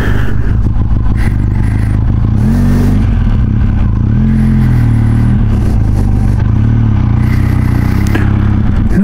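Benelli TRK 502X parallel-twin motorcycle engine running at low speed while riding, its pitch rising and falling gently twice with small throttle changes, over steady road and wind noise.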